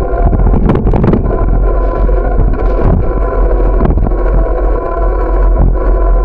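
Steady loud rumble of a moving bike heard from a camera mounted on it: wind on the microphone and road vibration over a steady hum. There are a few knocks about a second in as it rolls over rough, patched pavement.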